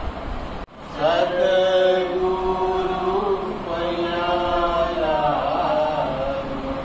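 A group of voices chanting devotional song in long, drawn-out held notes, two long phrases. The sound briefly cuts out just under a second in.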